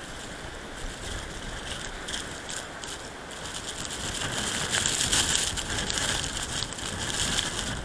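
Blizzard wind blowing hard across the microphone with a hiss of driven snow, swelling to a louder gust about halfway through.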